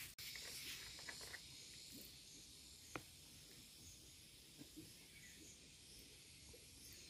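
Near silence: faint outdoor background hiss with a few soft clicks, one about three seconds in.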